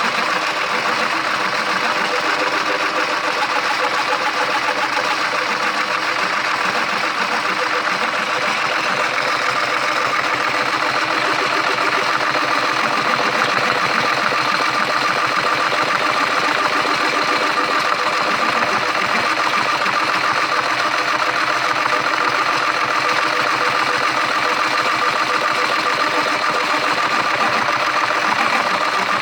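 A machine running steadily with a fast, even mechanical clatter that holds the same level and pace.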